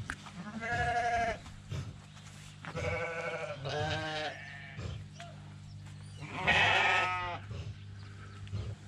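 Sheep bleating: four separate wavering bleats, the last and loudest about six and a half seconds in, over a steady low hum.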